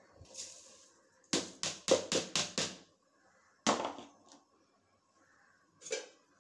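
Soaked basmati rice slid out of a plastic bowl into an aluminium pressure cooker of stock with a brief soft hiss, then a quick run of about six sharp taps as the bowl is knocked against the cooker to empty it, followed by two more single knocks.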